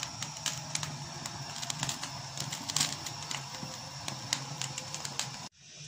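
Oil-coated potato skins crackling and popping irregularly as they roast on skewers directly over a gas burner flame, over a steady low hum. The crackling cuts off abruptly near the end.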